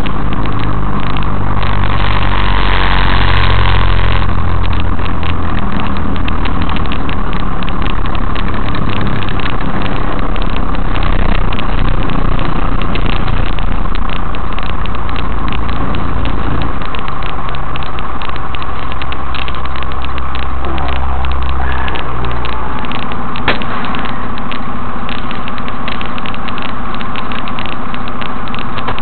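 Inside a semi truck's cab at highway speed: steady diesel engine drone under road noise, with the low engine note changing about two-thirds of the way through.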